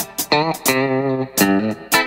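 Background music: a melody of plucked notes, a few notes a second.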